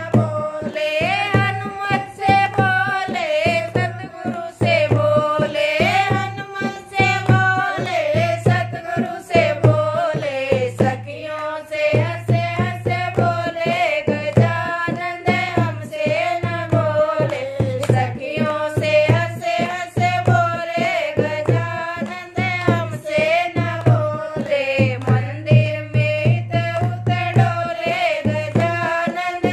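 Women singing a devotional folk bhajan together, with hand clapping keeping a steady beat under the sung melody.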